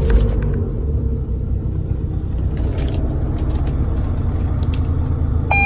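Toyota Alphard running with a steady low rumble, with a few light clicks. Near the end an electronic chime tone sounds.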